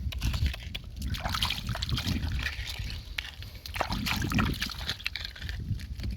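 Hands sloshing and splashing through mud and shallow water in irregular bursts, groping for clams.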